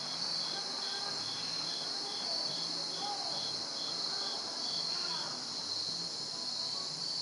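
Outdoor insect chorus: a steady high-pitched trilling, with a second insect chirping about two and a half times a second that stops about five seconds in.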